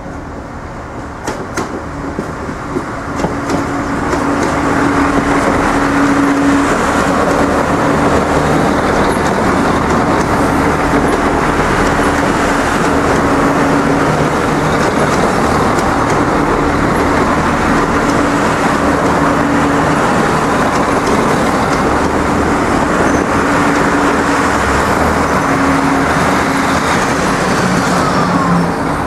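Eight-car Irish Rail 29000 class diesel multiple unit passing close by over a level crossing: its underfloor diesel engines humming steadily under the rumble of the wheels on the rails. The sound builds over the first few seconds as the train draws near, stays loud while the cars go by, and drops off near the end as the last car clears.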